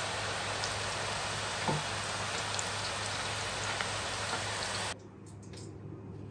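Sweet potato fries deep-frying in hot oil in a stainless steel fryer basket: a steady, dense crackling sizzle from oil bubbling hard around freshly dropped, moist fries. It cuts off suddenly about five seconds in, leaving faint room sound.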